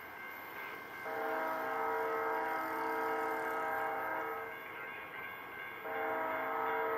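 Diesel locomotive's air horn sounding two long blasts, each a chord of several notes: the first starts about a second in and lasts some three seconds, the second begins near the end.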